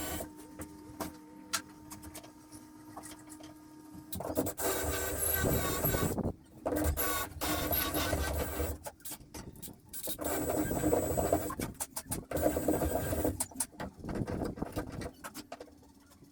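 Woodworking tool working on wood, running in stretches of a few seconds with short pauses between them.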